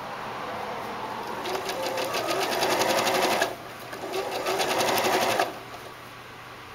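Janome 3160 sewing machine sewing a blind hem stitch in bursts. Its needle strokes come in a fast, even rhythm from about a second and a half in. It eases off around three and a half seconds, speeds up again around four and a half, and runs quieter near the end.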